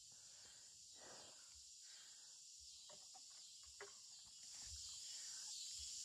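Near silence: a faint steady high chirring of insects, with a few soft rustles and one light tick a little before the four-second mark.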